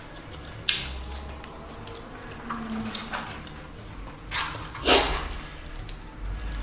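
Close-up eating sounds from chewing crispy fried chicken: a sharp click under a second in, then two loud noisy bites or mouth smacks, a little past four and about five seconds in.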